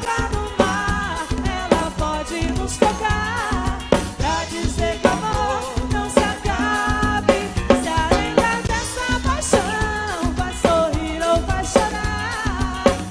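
Live electronic forró band playing an instrumental passage: a bending melodic lead line over bass and a steady drum-kit beat.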